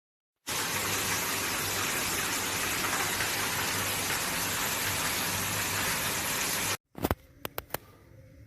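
Water running in a steady rushing stream for about six seconds, starting and stopping abruptly, followed by a few sharp clicks.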